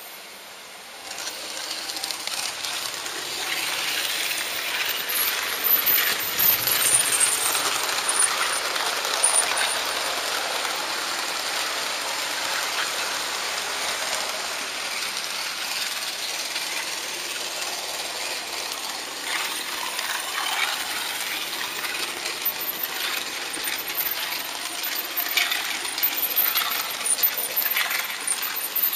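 HO scale model train running on metal track, picked up from the camera-carrying locomotive: a steady metallic rattling with quick clicks of wheels over rail joints and points, starting about a second in.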